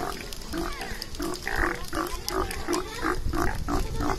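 Sea lion barking in a rapid, even run of short barks, about four a second, starting about half a second in.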